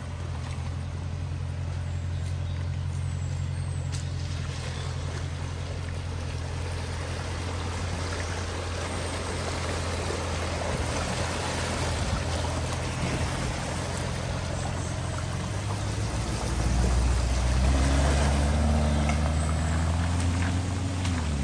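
Aston Martin DBX SUV wading slowly through a flooded ford: its engine runs low and steady while water rushes and splashes around the wheels. About sixteen seconds in the engine gets louder and rises in pitch as the car pulls out of the water.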